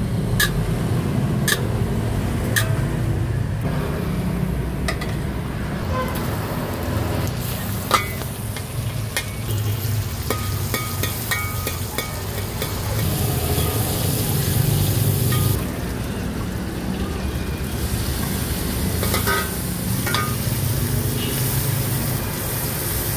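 Noodles being stir-fried in a wok, with a metal spatula clinking and scraping against the pan again and again over a steady low rumble, and one sharp clank about eight seconds in.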